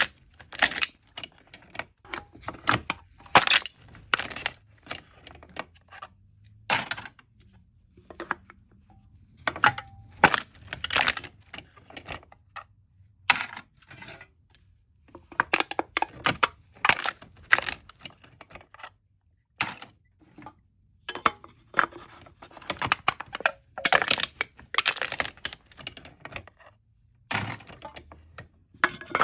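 Aluminium drink cans being crushed: runs of sharp crinkling, crackling crunches of thin metal, in irregular clusters with short pauses between them.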